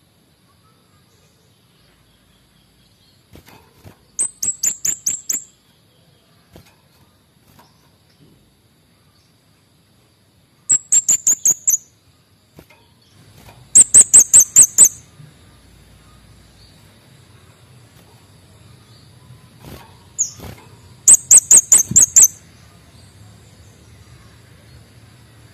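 Male kemade bunga api songbird calling in four short bouts of rapid, very high-pitched chirps, each bout about a second long with five to eight quick notes.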